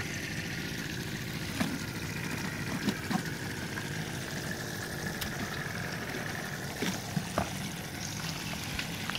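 Pieces of battered fish frying in a pan of oil: a steady sizzle, with a few faint clicks.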